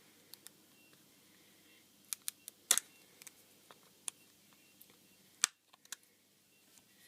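Plastic opening tool prying at the edge of an HTC Desire's LCD screen: a series of sharp, irregular clicks and taps. The loudest comes a little under three seconds in, with another strong one about five and a half seconds in.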